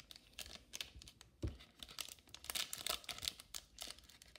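Foil wrapper of a 2020-21 O-Pee-Chee Glossy hockey card pack crinkling and tearing as it is opened by hand, with a dull bump about a second and a half in.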